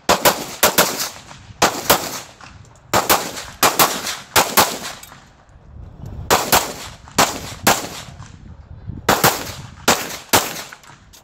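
Open-class competition pistol firing fast strings of shots: quick pairs and runs of up to five, with short pauses between them as the shooter moves between targets during a USPSA stage.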